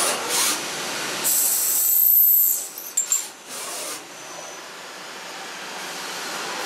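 Hwacheon CUTEX-160A CNC lathe parting off a SUS304 stainless steel workpiece under flood coolant: a hissing mix of cutting and coolant spray, loudest about two seconds in. It breaks up around three seconds, then settles to a quieter steady noise as the spindle comes to a stop.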